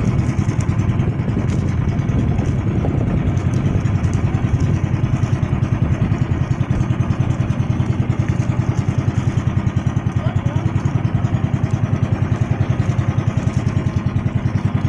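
Boat engine running steadily under way, with a fast, even throb.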